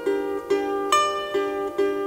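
Handmade lyre plucked in a steady, repeating pattern: ringing notes, a little over two a second, over a lower pair of notes that keep sounding.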